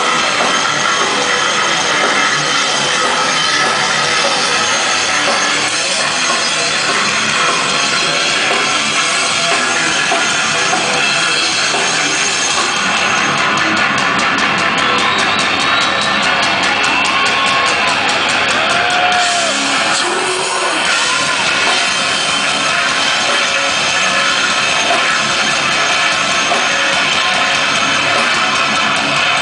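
Heavy metal band playing live, with distorted electric guitars, bass and drums as a dense, loud, unbroken wall of sound heard from the crowd.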